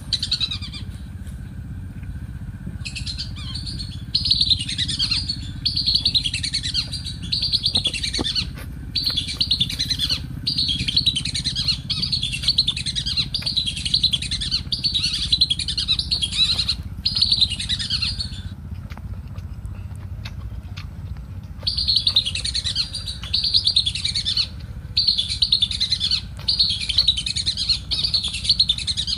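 Birds chirping in fast, repeated phrases, with a pause of a few seconds about two-thirds of the way through, over a steady low rumble.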